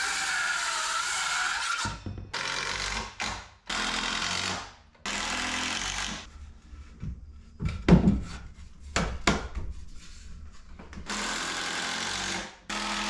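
Cordless circular saw ripping a strip off a wooden board in several runs of a second or two each. Between the runs, in the middle, come knocks and a loud thump of wood being handled.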